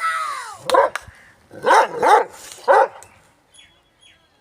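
Dog barking: a long drawn-out call trailing off at the start, then four short barks at uneven intervals.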